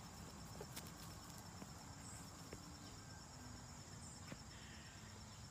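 Near silence: faint outdoor ambience with a steady high insect hum and a few soft ticks.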